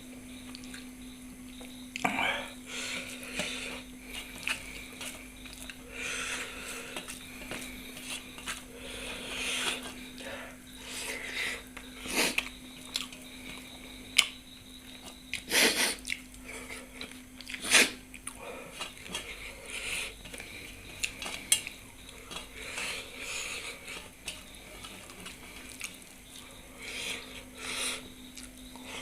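Eating from a plate: scattered clinks and knocks of utensils against dishes, with soft chewing in between, over a steady low hum.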